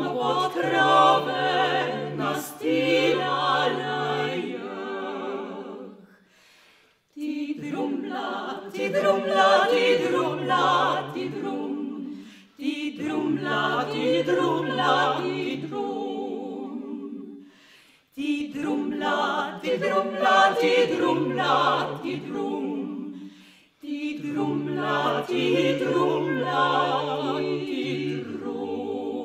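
A classical vocal quartet of one man and three women singing unaccompanied in harmony, in five phrases broken by short pauses.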